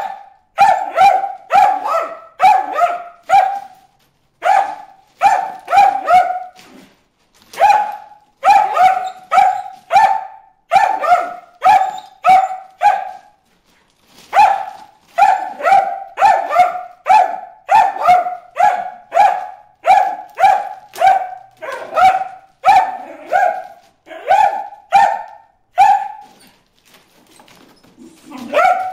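Rat terrier barking at goldfish in a pond: rapid, high, repeated barks in runs of several, broken by short pauses.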